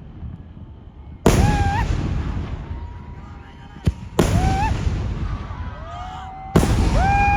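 Daytime festival fireworks: three heavy explosive blasts about three seconds apart, each followed by a long rumbling tail, with a short sharp crack just before the second.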